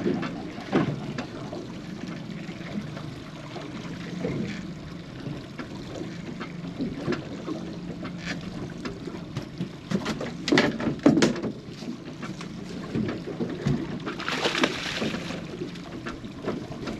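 Small fishing boat afloat, water sloshing against the hull over a low steady hum, with a few sharp knocks about ten seconds in and a brief rush of water a few seconds later.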